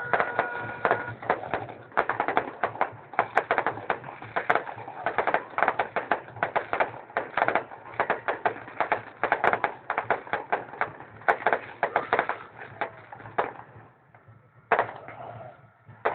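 Fireworks firing: a rapid, dense run of bangs and crackling pops, several a second, that thins out near the end with one more loud bang.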